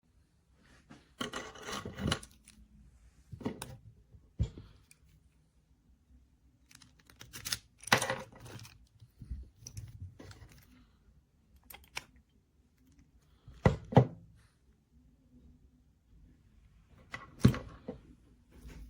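Irregular handling noises: scattered knocks and clicks with rustling between them, several sharp knocks standing out.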